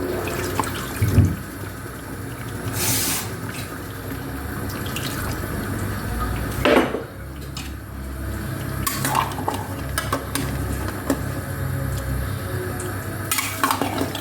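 Cooking pot, lid and utensils clanking and clinking at the stove, with several separate knocks; the loudest comes about seven seconds in. A steady low hum runs underneath.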